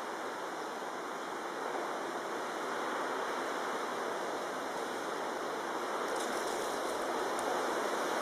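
Steady rushing noise with no clear source, with a few faint ticks near the end.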